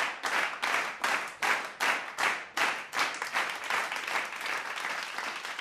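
A crowd applauding, at first clapping together in an even beat of about two or three claps a second, then about three and a half seconds in breaking into scattered, unsynchronised applause.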